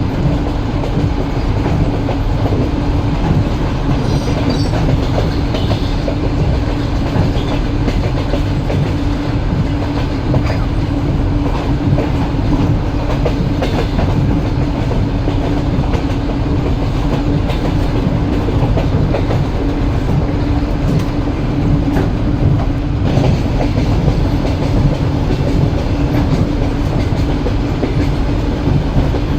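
Train running steadily: a continuous low rumble from the wheels on the track, with a steady hum and the clickety-clack of wheels passing over rail joints.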